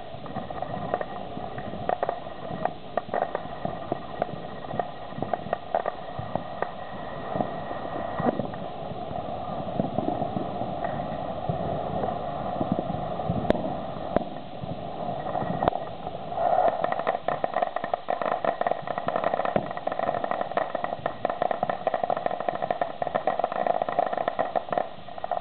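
Ground fountain fireworks spraying sparks with a steady hiss, peppered with many sharp crackling pops; from about two-thirds of the way in, the hiss gets louder and the crackles come thicker.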